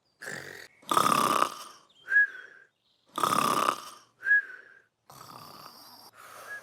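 Cartoon snoring: two loud rasping snores, each followed by a short high whistle.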